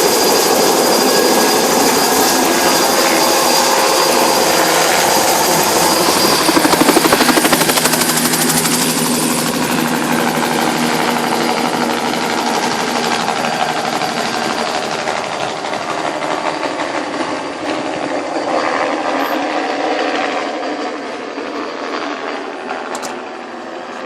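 Helicopter flying past, its rotor and engine noise steady and loud. It peaks about seven seconds in with a fast rotor chop, then slowly fades.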